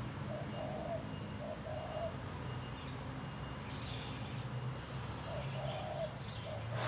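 Spotted dove cooing: a decoy bird calling in its repeated phrases of short coos, one bout in the first couple of seconds and another near the end, over a steady low hum. A brief burst of noise comes right at the end.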